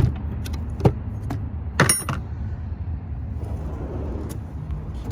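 Metal hand tools clinking and clicking as they are handled on the tool cart, a few separate knocks with the loudest, ringing clink about two seconds in, over a steady low hum.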